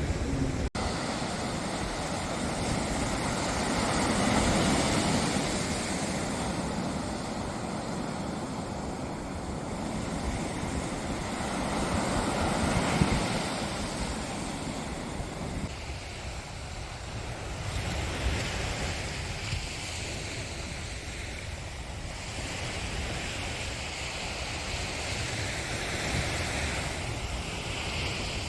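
Sea waves washing onto the shore, swelling and falling back in slow surges, with wind rumbling on the microphone.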